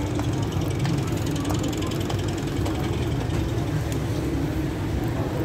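Busy city street ambience: a steady low hum of traffic with the voices of passers-by, and a rapid faint clicking through the first few seconds.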